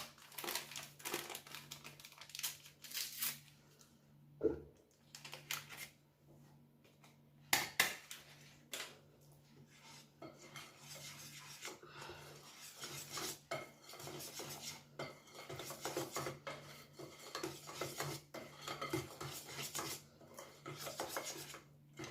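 A kitchen utensil scraping and knocking against a mixing bowl while stirring thick cake batter, with irregular clicks and stretches of quick repeated strokes.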